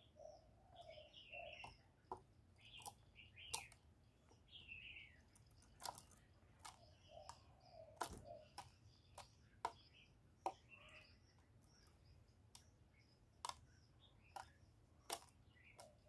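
Spotted dove giving short low coos, once near the start and again about seven seconds in, with high chirps of small birds and scattered sharp clicks in between.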